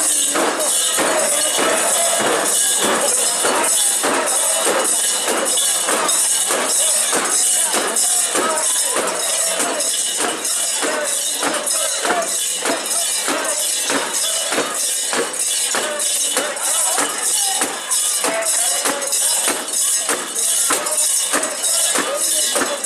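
Metal rings and fittings of a carried mikoshi (portable shrine) jangling in a steady beat, about two strokes a second, as the bearers bounce it, with the bearers' voices chanting underneath.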